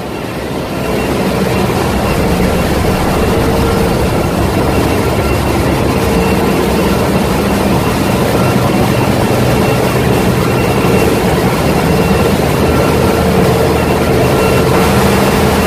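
Loud, steady drone of a tanker's engine room machinery running, with a constant hum underneath.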